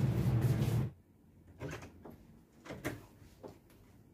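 A steady low hum that stops abruptly about a second in, followed by a quiet room with three soft knocks or bumps.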